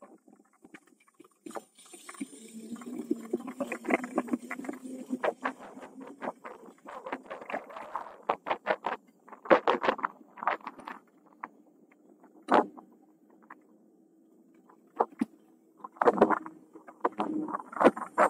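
Electric bicycle being ridden, heard as irregular rattling clicks and knocks, with a faint steady hum underneath at times.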